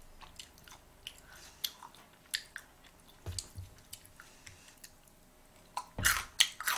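A person chewing food close to the microphone, with short wet mouth clicks and smacks that grow louder near the end.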